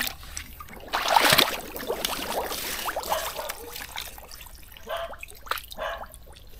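Shallow water splashing and trickling, a busy spell of sloshing about a second in, then a few smaller splashes.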